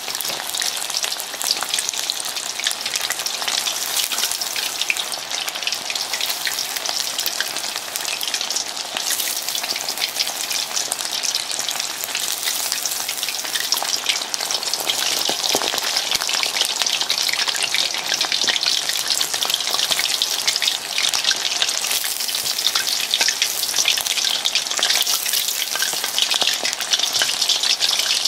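Potato-starch-coated chicken wing pieces deep-frying in hot oil: a dense, steady crackling sizzle as moisture boils out of the coating, growing a little louder in the second half.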